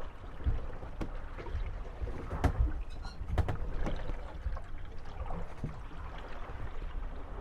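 Moored wooden gondolas rocking on the waves, their hulls knocking and creaking against each other over the wash of lapping water. Several knocks, the two sharpest about a second apart near the middle.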